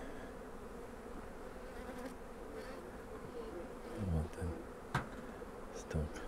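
Many honeybees buzzing around their hives in a steady, dense hum. A few low thumps come about four and six seconds in, with a short sharp click between them.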